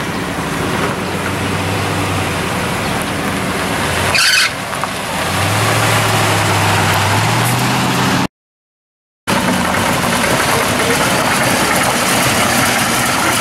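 Engine of a 1960s Ford pickup truck running as it rolls slowly past, with a short sharp noise about four seconds in and the revs rising slightly a little later. After a brief cut to silence, a hot rod pickup's exposed engine runs steadily as it drives by.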